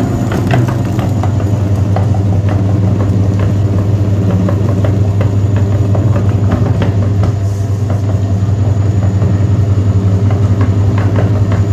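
Electric meat grinder running with a steady hum while it crushes bars of soap. Scattered crackling and crunching comes from the soap being forced through the grinder plate.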